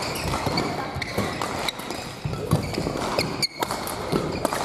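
Badminton rally on an indoor court: rackets hitting the shuttlecock, with shoes squeaking and footsteps thudding on the court floor. The hall's background noise of voices and other play runs underneath.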